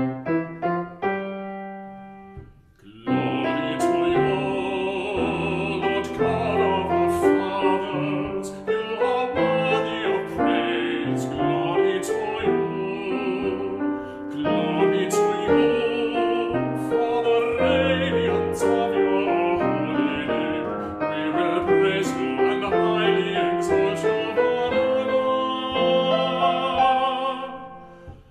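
A solo voice with vibrato sings a sacred song over keyboard accompaniment, after a short introduction of held chords on the keyboard; the music fades near the end.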